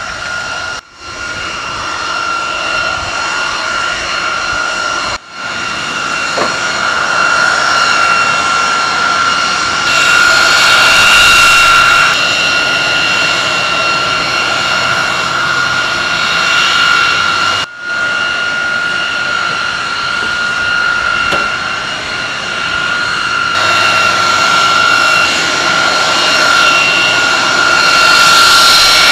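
Jet turbine running steadily: a loud rush of engine noise under a high, constant whine. It swells louder for a couple of seconds about ten seconds in and again near the end, and drops out for an instant three times.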